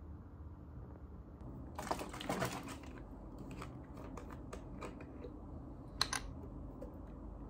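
Crackling and clicking of a large plastic drink bottle being handled and drunk from: a dense flurry of crackles about two seconds in, then scattered single clicks and a last short cluster near the end.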